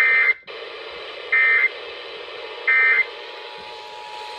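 Emergency Alert System end-of-message data burst: three short, identical buzzing bursts of SAME digital tones, about a second and a third apart, over radio hiss. They mark the end of the relayed severe thunderstorm warning.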